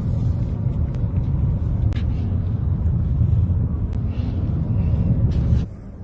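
Steady low rumble of a car driving, with a few faint clicks; it drops away sharply near the end.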